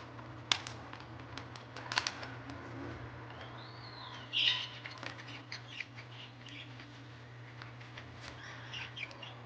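A few light, sharp clicks from handling the laptop's parts during disassembly, mostly in the first two seconds. A bird chirps in the background, with one call that rises and falls about four seconds in and shorter chirps near the end, over a steady low hum.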